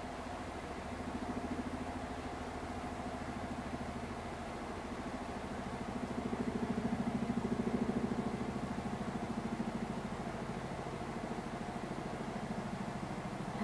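A motor running steadily with a low hum and a fast even pulse, growing louder from about six to nine seconds in.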